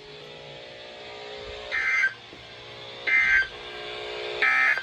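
NOAA Weather Radio SAME end-of-message data bursts: three short, shrill digital bursts a little over a second apart, marking the end of the Severe Thunderstorm Warning broadcast. A faint steady hum from the radio sits between them.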